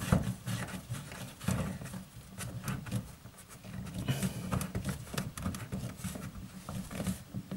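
Irregular light knocks, clicks and rubbing from hands working close to the microphone on a flexible hose's metal nut at a bath tap connection.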